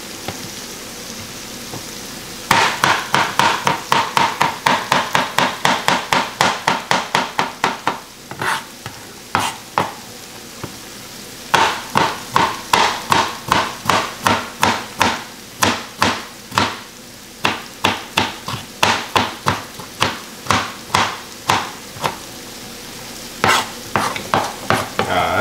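Chef's knife chopping potato on a plastic cutting board, quick sharp knocks several a second in two long runs with a brief pause between, over the steady sizzle of chicken frying in a pan.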